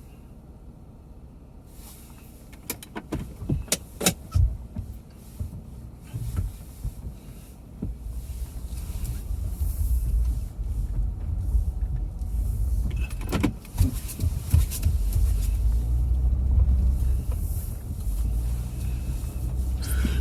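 Car sounds: a few sharp clicks and knocks a couple of seconds in, then a steady low rumble of the car from about eight seconds in, with a few more knocks partway through.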